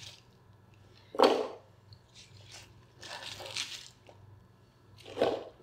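Kitchen knife chopping bunches of fresh herbs on a cutting board: a sharp chop about a second in, a longer crunchy cut through the stalks around the middle, and another sharp chop near the end.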